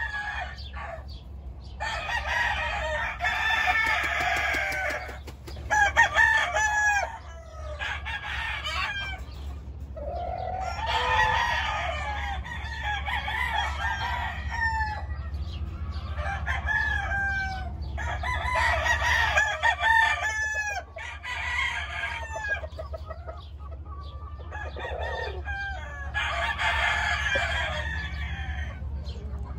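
Gamefowl roosters crowing one after another through the whole stretch, some crows running into each other, with shorter clucking calls in between. A steady low hum lies underneath.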